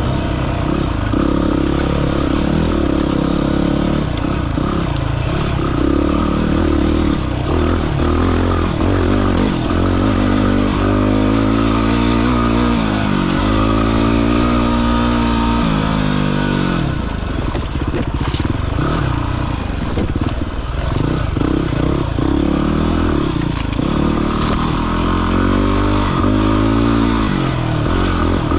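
Dirt bike engine being ridden off-road, its revs rising and falling again and again as the throttle is worked.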